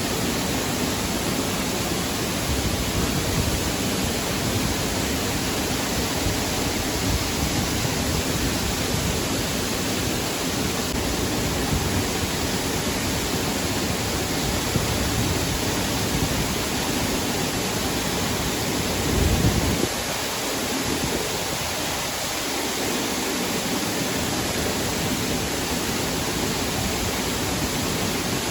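Waterfall water rushing steadily, with a brief louder low rumble about two-thirds of the way through.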